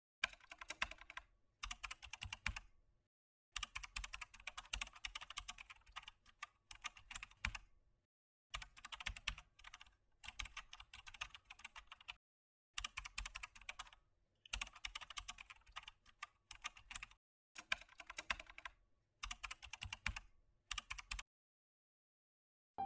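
Computer keyboard typing: seven bursts of rapid keystrokes, each a few seconds long, separated by short complete silences, stopping about a second and a half before the end.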